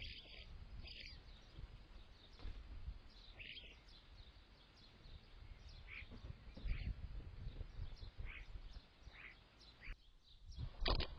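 Garden birds giving short chirps every second or so over a low rumble, with a sharp knock near the end.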